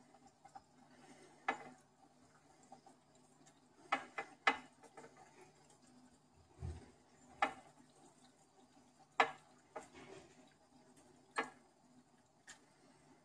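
Irregular sharp clicks and knocks in a red-eared slider tank during feeding, about nine of them, with one dull low thump near the middle. A faint steady hum from the aquarium filter runs underneath.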